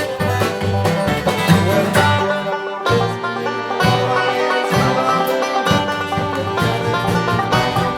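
Acoustic bluegrass-style string-band music without singing: banjo and guitar picking over a bass line.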